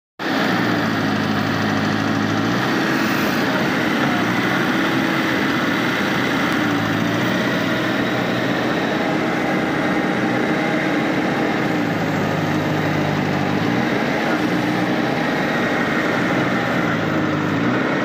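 Diesel engine of a JCB backhoe loader running while its backhoe arm digs, the engine note shifting down and back up every few seconds.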